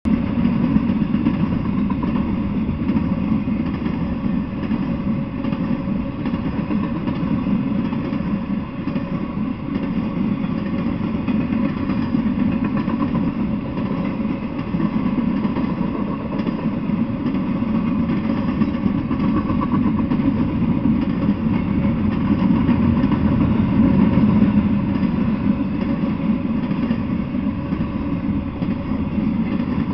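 Intermodal freight train of well cars rolling past, a steady rumble of steel wheels on the rails that swells a little near the end.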